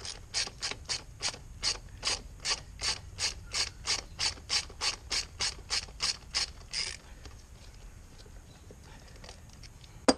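Socket ratchet wrench clicking in quick, even strokes, about three to four clicks a second, as it backs out the rear brake caliper's slide bolt. The clicking stops about seven seconds in, and one sharp click follows near the end.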